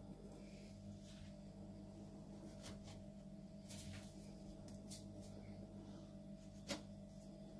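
Small knife cutting through a baked fekkas log with a set chocolate coating: faint, scattered crunches, then one sharp click a little before the end. A steady low hum runs underneath.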